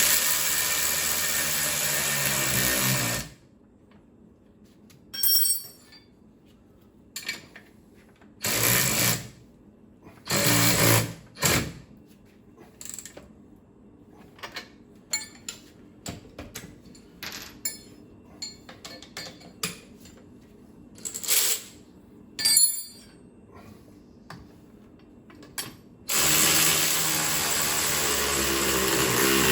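Cordless power tool running down the stern drive's mounting bolts: a run of about three seconds at the start, two short bursts in the middle, and another long run near the end that winds down as it stops. Small clinks of metal in between.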